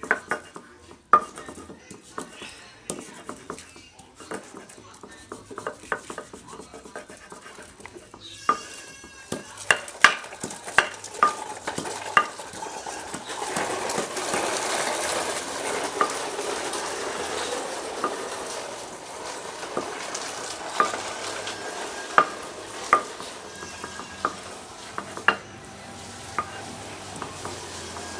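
Ginger being ground on a flat grinding stone with a hand stone: sharp knocks of stone on stone and a rough scraping that thickens about halfway through.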